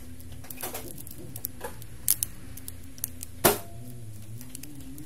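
Hands handling parts inside an opened laptop, making a few light clicks and knocks as a battery lead and connector are worked. The loudest knock comes about three and a half seconds in, over a faint steady hum.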